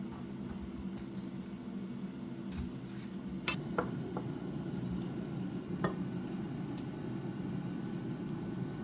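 A few light, sharp clinks, as of glass or dishes being handled, over a steady low hum.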